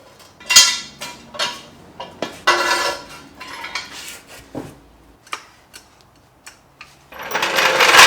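Steel jack stands and a jack being handled and set under a car: several separate metal clanks and scrapes, then a longer metallic rattle starting near the end.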